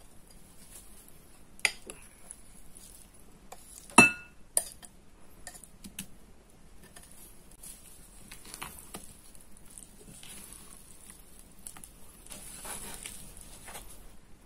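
Spatula folding mashed banana into thick batter in a glass mixing bowl: soft wet stirring and scraping. A few sharp knocks on the glass come about two and four seconds in, the one at four seconds the loudest, with a brief ring.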